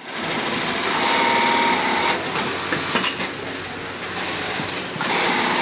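Industrial sewing machine stitching denim, running with a steady motor whine, then stopping about two seconds in. A few sharp clicks follow before it starts sewing again near the end.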